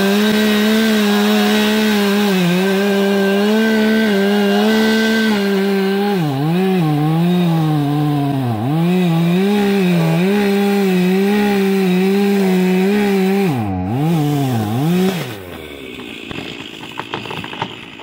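Two-stroke chainsaw running at full throttle through the felling cut in a dead oak trunk. From about six seconds in, its pitch dips repeatedly as the chain bogs down in the wood. About fifteen seconds in, the throttle drops off and the saw goes quiet.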